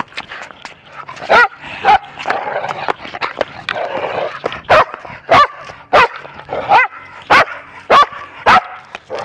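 Small fluffy dog barking close to the microphone. There are two short barks in the first two seconds, then, about halfway through, a quicker run of about seven sharp barks a little over half a second apart, with scuffling and panting between them as it lunges and paws.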